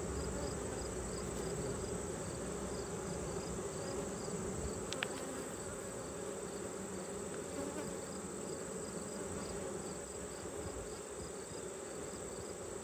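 Honey bees buzzing in a steady drone around an open hive. A faint high chirping repeats a few times a second, and a single small click comes about five seconds in.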